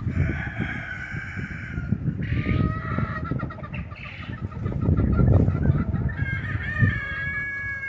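Farmyard chickens calling in a few drawn-out squawks, the last of them near the end. Under them runs a loud, uneven low rumble and knocking, strongest about five seconds in.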